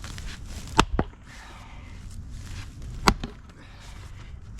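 A 6 lb splitting maul striking a firewood round twice, about two seconds apart. Each blow is a sharp crack followed by a quick smaller knock.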